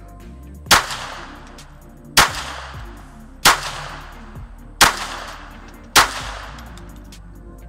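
Five shots from a Ruger Mark IV .22 LR pistol loaded with CCI subsonic ammunition, fired one at a time a little over a second apart, each followed by a short echo dying away.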